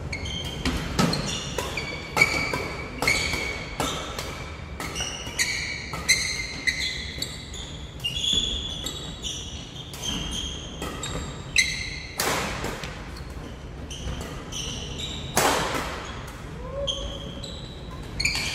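Badminton rally: racket strikes on the shuttlecock come every half second to a second, each a sharp crack with a brief ringing ping. Two louder, longer bursts of noise come about twelve and fifteen seconds in.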